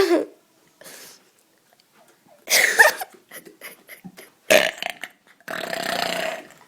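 A child burping on purpose: a loud burp about two and a half seconds in, a short one a couple of seconds later, and a longer, drawn-out burp near the end.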